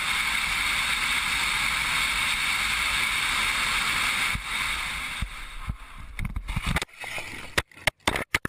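Steady rushing road and wind noise of a car in motion. It weakens after about four seconds and breaks up into choppy fragments with brief dropouts near the end.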